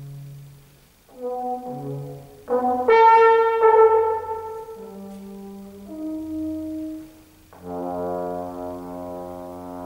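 Solo trombone playing slow, separate held notes. About three seconds in comes a loud, bright blast that fades into softer notes, and a long held note begins near the end.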